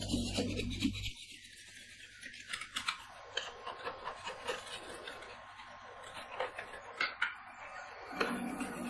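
Metal spatulas tapping, chopping and scraping on the steel plate of an ice-cream-roll cold plate, mixing cream and maple syrup as it freezes: a run of irregular sharp clicks and scrapes. A low hum cuts off about a second in and comes back near the end.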